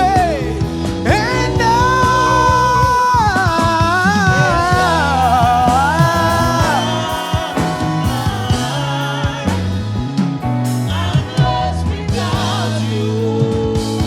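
Live gospel worship music: a singer holds long, wavering notes over a steady band backing of bass and keys.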